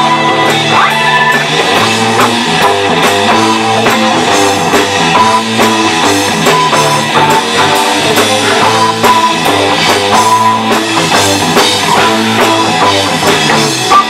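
Live rock band playing loudly on electric bass, electric guitar and drum kit.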